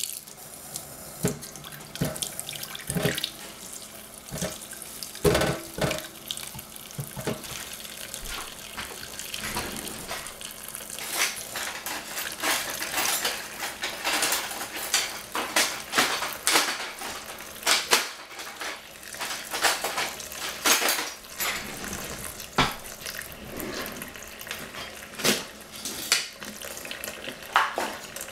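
Kitchen tap running a thin stream into a small stainless-steel saucepan in a stainless sink, with strawberries going into the water and being rinsed: many irregular splashes and light knocks against the pan.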